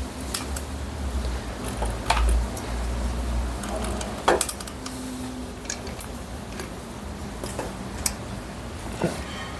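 Irregular light clicks and taps of a small metal carburetor being handled and worked onto its rubber intake boot, its parts knocking lightly together. A low rumble runs under the first few seconds.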